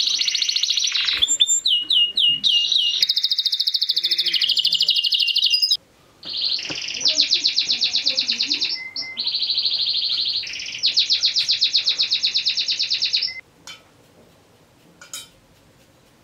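Domestic canary singing in long, fast rolling trills, with a short break about six seconds in; the song stops about thirteen seconds in, and a few faint clicks follow.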